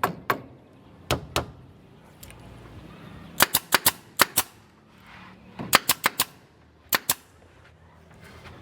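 Hammer blows on wood in quick groups of sharp strikes, with short pauses between the groups.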